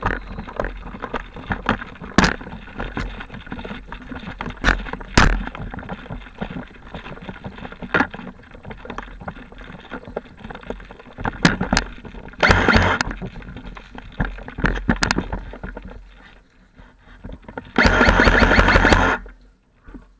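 An airsoft player on the move: knocks, footfalls and rattling gear, broken by two bursts of rapid clicking, a short one about twelve seconds in and a longer, louder one near the end.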